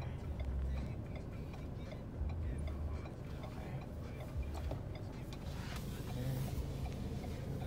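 Car cabin with the engine running low and steady while in reverse, and a faint, regular ticking.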